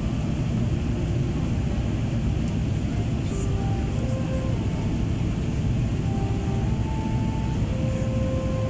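Steady cabin noise of a jet airliner in flight on its descent: an even low rumble from the engines and airflow with a hiss above it, heard from inside the cabin at a window seat.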